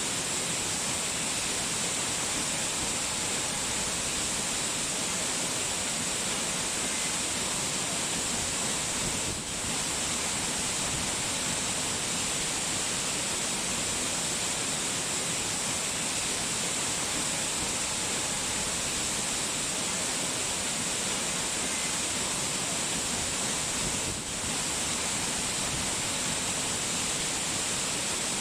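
Steady, even hiss of falling water, dipping briefly twice.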